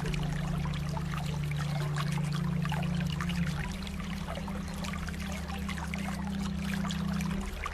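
Trickling, flowing water, with many small splashy flecks. Under it, light background music holds low sustained notes that change chord about three and a half seconds in and again near the end.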